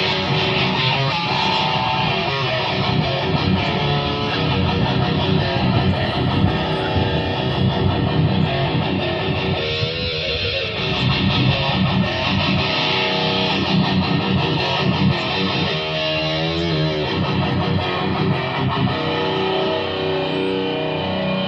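A wrestler's ring entrance theme: loud rock music driven by electric guitar.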